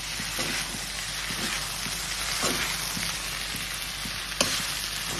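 Pasta and vegetables sizzling in oil in a steel kadai while being stirred with a spoon, with soft scrapes and a sharp clink of the spoon on the pan about four seconds in.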